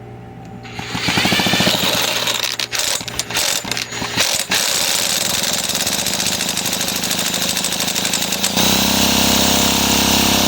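An old Homelite chainsaw engine being spun over during a spark test of its coil. The sound rises in pitch about a second in, runs with a rapid mechanical rattle, and steps up to a louder, steadier pitch near the end.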